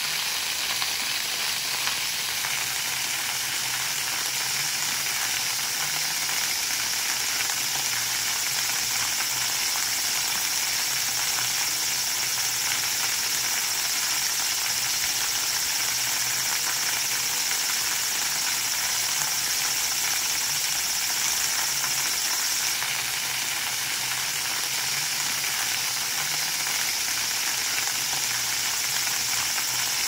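Spring-fed waterfall: a constant, even rush of falling and splashing water.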